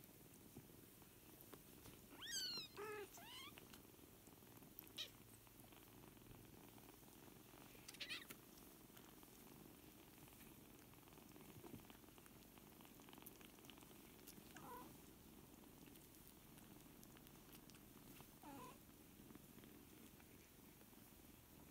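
Faint, steady purring from the cat and her 4-week-old kittens. Over it come a few high kitten mews: the loudest about two and a half seconds in, short ones near five and eight seconds, and two weaker, lower ones later.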